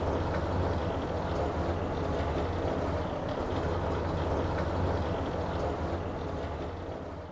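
1937 Leyland turntable-ladder fire engine's engine running steadily while parked, a low even rumble with mechanical noise over it, fading out near the end.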